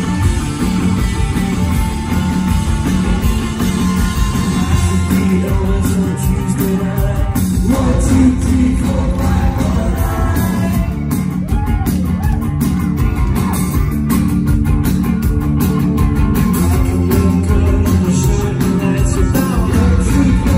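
A live rock band playing loud amplified electric guitars, bass and vocals, heard from within the audience.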